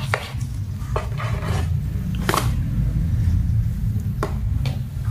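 Kittens pawing at and shifting inside a thin cardboard carton: scattered light scrapes, taps and rustles of the card, over a steady low hum.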